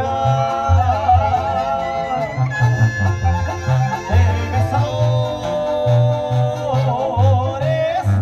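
Live Mexican banda music: several held melody lines with vibrato moving together in harmony, over a steady pulsing bass.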